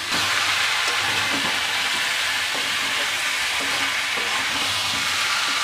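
Chicken, fried potatoes and masala sizzling in a hot kadai while a metal spatula stirs them. This is the bhuna stage of chicken kasha, with the spices being fried down.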